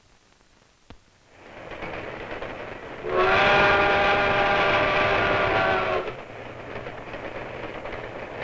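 A train's rumble builds up, and then a steam locomotive's whistle sounds one long, steady, chorded blast of about three seconds. As the blast ends, the running noise of the train carries on and fades away.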